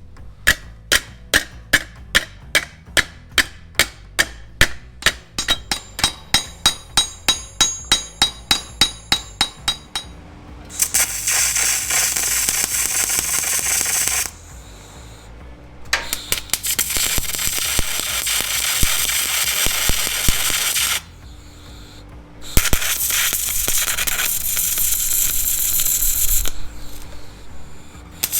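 Hammer blows on steel sheet, about three a second for the first ten seconds with a ringing tone, as a sill repair panel's edge is folded over on a railway-iron anvil. Then three runs of MIG welding, a few seconds each, a steady crackle with short stops between, tacking the panel in.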